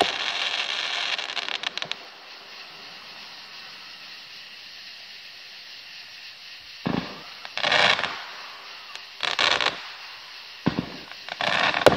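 Aerial fireworks going off. A dense crackling fades out over the first two seconds, then after a lull of a few seconds comes a run of four or five sudden bangs and crackling bursts in the last five seconds.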